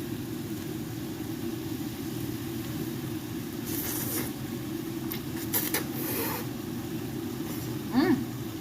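A steady low mechanical hum in a kitchen while a pot of noodles cooks. Brief hissing, scraping noises from the cookware come twice around the middle, and a short hum of a voice comes near the end.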